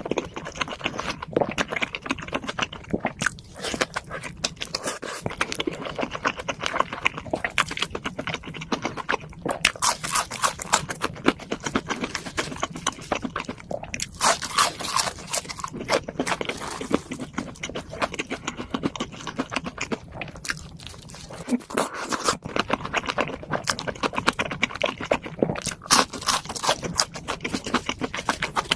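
Close-miked chewing and crunching of food, a steady run of wet clicks and crackles with louder bursts of crunching every few seconds.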